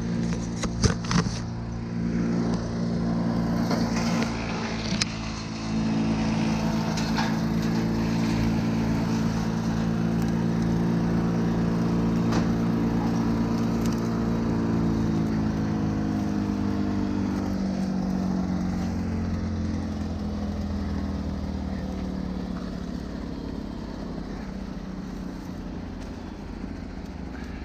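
A large engine running steadily, its pitch slowly falling and its level easing off over the second half. There are several sharp cracks in the first couple of seconds.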